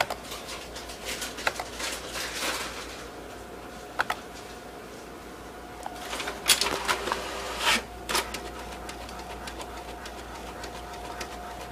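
Inkjet printer running as it prints a page, with a steady thin whine. Irregular knocks and rustles from the phone being handled and carried sound over it, loudest about six to eight seconds in.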